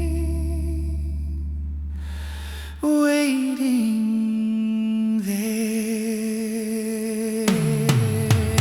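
Music: a held note with vibrato over a fading low bass, then a wordless hummed vocal line stepping down in pitch, with plucked notes and percussive hits coming in near the end.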